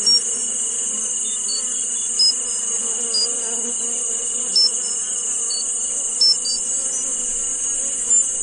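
Tinnitus-masking soundscape: a steady high-pitched hiss with a faint steady tone beneath it, broken by about six short high chirps at uneven intervals.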